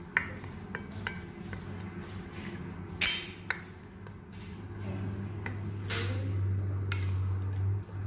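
Utensil clinking and knocking against a mixing bowl while stirring seasoned flour, a scatter of sharp clinks with the loudest about three seconds in.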